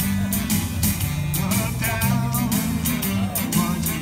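Live rock music: an electric guitar plays a melodic instrumental passage over a steady drum beat and bass line.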